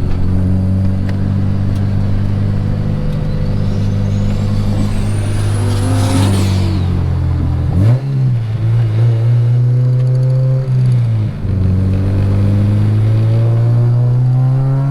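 Honda K20 inline-four in a DC2 Integra Type R running at low revs, heard from inside the car. Its note drops and shifts about halfway through, dips briefly twice, then climbs slowly near the end. A thin high whine rises for a few seconds in the middle and then stops.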